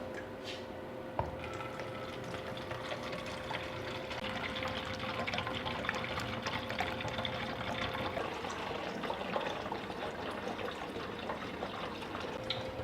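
Water spraying and splashing, with scattered small crackles and drips, as an engine is rinsed down.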